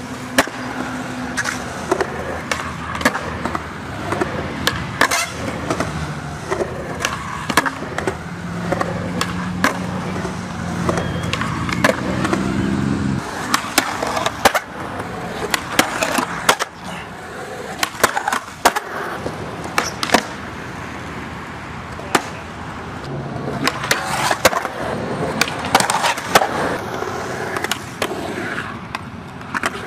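Skateboard wheels rolling on concrete, broken by many sharp clacks of tail pops and board landings. Around the middle, a longer, lower scraping of the board grinding along a concrete ledge cuts off suddenly.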